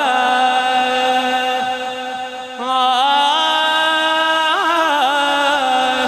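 A male naat reciter singing unaccompanied into a microphone, holding long drawn-out notes with a quick ornamented turn about four and a half seconds in.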